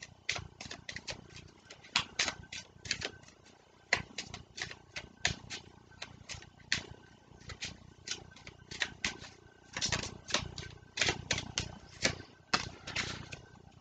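A deck of oracle cards being shuffled by hand: a soft run of irregular card clicks and slaps, several a second.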